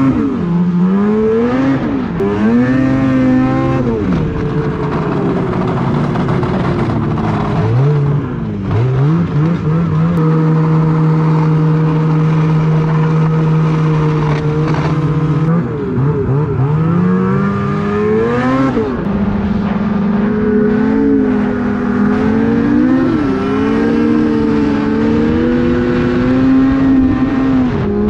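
Snowmobile engine heard from the rider's seat, pitch rising and falling with the throttle. About ten seconds in it holds a steady cruise for some five seconds, then revs up and down again.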